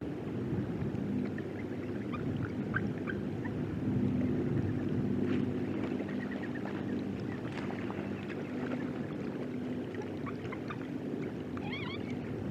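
Short bird calls scattered over a steady low rumble, with a quick run of chittering, rising-and-falling calls near the end.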